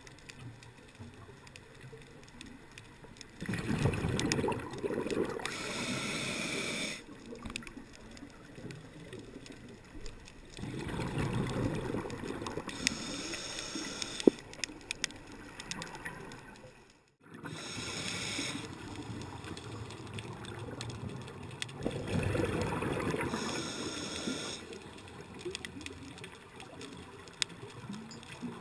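A scuba diver's exhaled bubbles from the regulator, heard underwater through a waterproof camera housing: four bursts of bubbling, each a few seconds long and about six or seven seconds apart, with quieter breathing pauses between.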